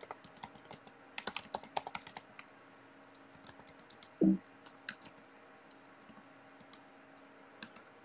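Typing on a computer keyboard: a quick run of keystrokes over the first couple of seconds, then a few scattered key presses. About four seconds in there is a brief, louder low sound.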